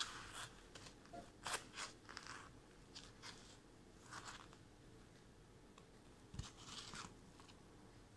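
Faint, irregular crunching and rustling of dry breadcrumbs as hands press and turn thin veal slices in a container of crumbs.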